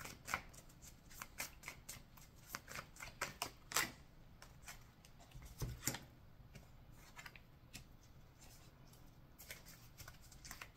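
Tarot deck being shuffled by hand: a quick run of soft card flicks and clicks, thinning out in the middle and picking up again near the end.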